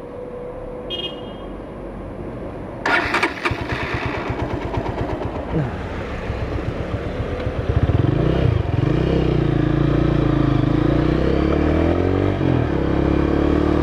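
Honda Tiger Revo's single-cylinder engine idling with no rattle from its re-riveted clutch housing, with a short clatter about three seconds in. From about eight seconds the engine gets louder, its pitch rising as the motorcycle accelerates, then dipping near the end at a gear change.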